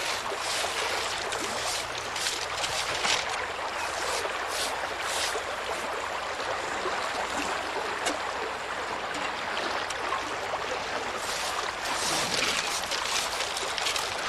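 Shallow river water sloshing and trickling as gravel is washed through rattan sieves, with scattered small splashes.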